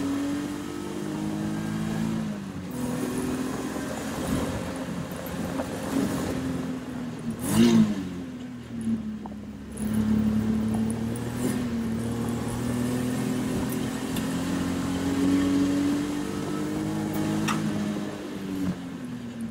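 Race car engine heard from inside the open cockpit while lapping a track. It pulls through the gears, its pitch sinking as the car slows and climbing steadily as it accelerates, then dropping near the end. There is a brief, sharp rev flare about seven and a half seconds in.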